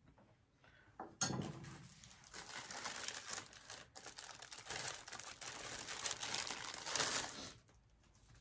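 A paintbrush working clear top coat over rice paper on a painted wooden cabinet door: a scratchy, crinkly swishing of bristles on paper that starts sharply about a second in and stops about a second before the end.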